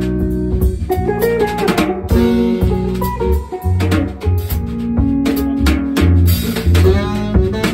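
Small jazz band playing an instrumental tune: electric guitar chords and lines over an electric bass line, with a drum kit keeping time on cymbals, snare and bass drum.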